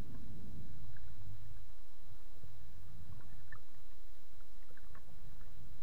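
Sea water sloshing against a camera at the surface as a spearfisherman swims, a steady low rumble with a few faint ticks.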